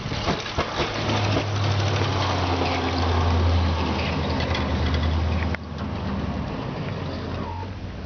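Plow truck's engine running with a steady low hum under a rushing noise. It is loudest in the middle and drops suddenly about five and a half seconds in.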